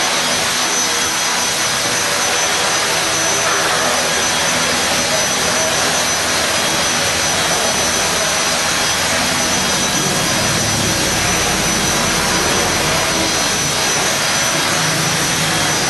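Electric 450-size RC helicopter (HK450 GT Pro) at hover: a steady high-pitched whine from the brushless motor and gears over the whoosh of the spinning rotor blades, with some low rumble in the second half.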